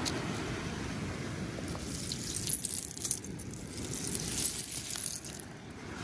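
Loose seashells clinking and rattling against each other in a short run of light clicks, starting about two seconds in, over a steady low noise of wind and surf.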